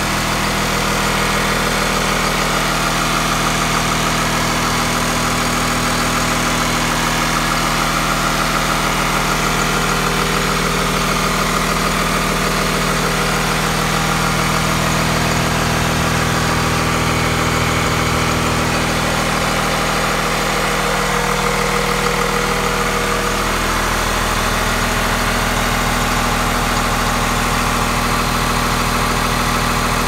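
A 2000 Blue Bird bus's rear-mounted diesel engine idling steadily, heard up close at its open engine compartment.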